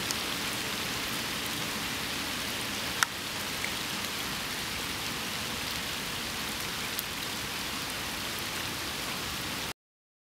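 Steady rain falling on a pond's surface: an even hiss, with a sharp tick about three seconds in. It cuts off suddenly near the end.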